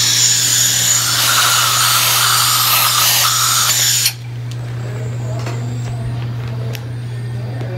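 High-speed dental drill running with a steady hissing whine as it cuts the tooth for a crown, then cutting off abruptly about four seconds in. A low steady hum continues, with a few light clicks.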